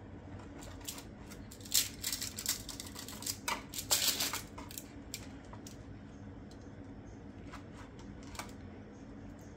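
Kitchen utensils scraping and clicking against a baking tray while a baked fish is lifted off it. There is a flurry of sharp clicks and scrapes a couple of seconds in, then a few scattered clicks, over a faint steady low hum.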